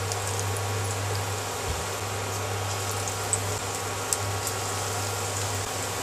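Gram-flour-battered potato rolls deep-frying in hot oil, a steady sizzling hiss of bubbling oil, with a low steady hum underneath.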